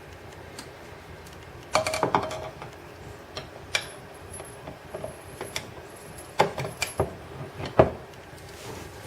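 Metal clicks and clinks of a storm door closer's hydraulic cylinder being fitted to its mounting bracket and a connecting pin pushed in: a short clatter with a brief ring about two seconds in, then scattered single clicks, the sharpest near the end.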